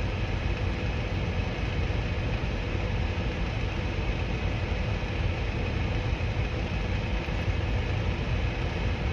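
A steady low rumble with a faint constant hum, like an idling engine, runs unchanged throughout.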